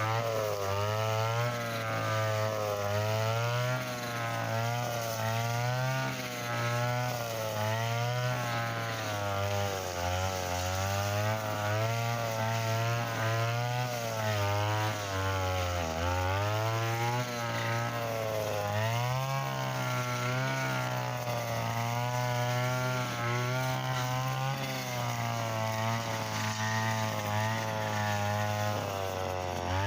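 Mitsuyama brush cutter engine running hard, its pitch wavering and dipping again and again as the 2.4 mm nylon line cuts through thick, tough grass. The deepest dip comes about halfway through.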